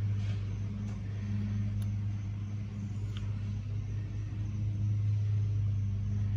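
A steady low mechanical hum that holds an even pitch throughout.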